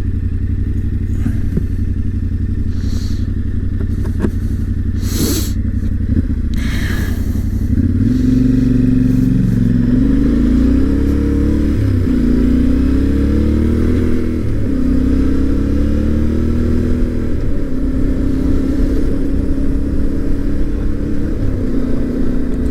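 Yamaha Ténéré 700's parallel-twin engine under way, with a few sharp knocks in the first several seconds. From about a third of the way in, the engine note climbs and drops back three times as the bike accelerates up through the gears, then holds steady at a cruise.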